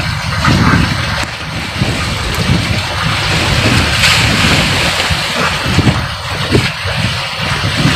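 Strong wind buffeting the microphone in gusts over rough open sea, with waves and churning water splashing around the boats.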